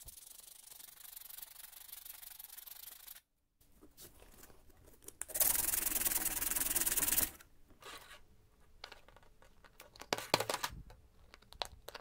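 Hand sanding: a small part rubbed on sandpaper fixed to a wooden block. The sanding is loudest for about two seconds in the middle, with quieter rubbing and short scrapes before and after.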